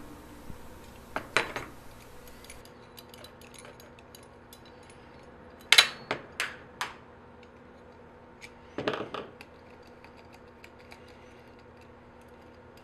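Small metal parts and tools clinking and knocking against a metal plate as they are handled: a pair of clinks about a second in, three sharp clinks around six seconds in, and another short cluster about nine seconds in.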